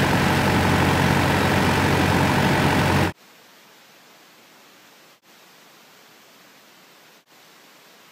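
Loud rushing of a small boat under way, its engine hum buried in wind and water noise on the microphone, cutting off abruptly about three seconds in. After that only a faint steady hiss remains.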